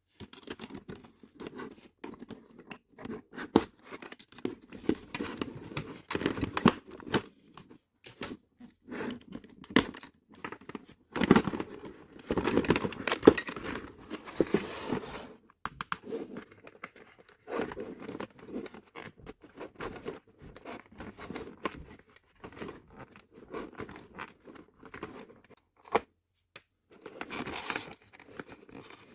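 Toy packaging being handled: plastic crinkling and tearing with many sharp clicks, busiest and loudest in a stretch a third of the way through.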